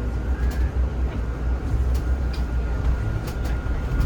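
Cabin noise of a Zhongtong hybrid range-extender city bus on the move: a steady low rumble with a faint high whine and several sharp rattles and clicks.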